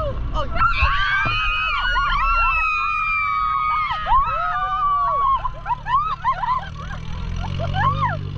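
Riders in an open 4x4 jeep screaming and whooping in long cries that rise, hold and fall, over the low rumble of the jeep's engine. The engine grows louder near the end.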